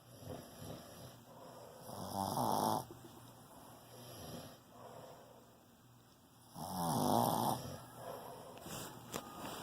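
Snoring during sleep: two loud snores about four and a half seconds apart, with softer snoring breaths between them.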